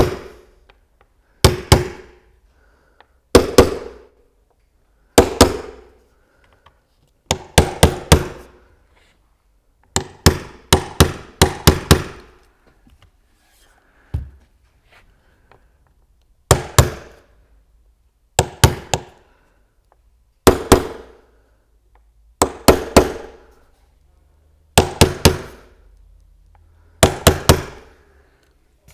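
Hammer striking a nail punch, driving nail heads below the surface of a cedar beehive eke. The blows come in quick groups of two to four, about every two seconds, each with a short metallic ring.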